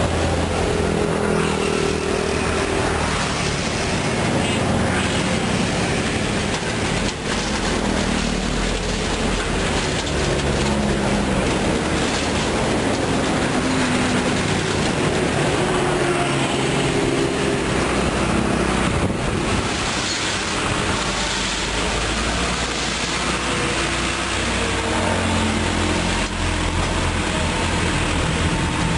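Diesel engine of a light dump truck running as its hydraulic hoist raises the bed to tip out a load of stone, over a steady, dense rushing noise.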